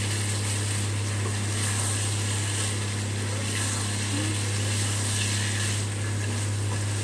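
A spatula turning shredded cabbage and peas in a kadhai: a soft scraping and rustling that swells about once a second with each stroke, over a steady low hum.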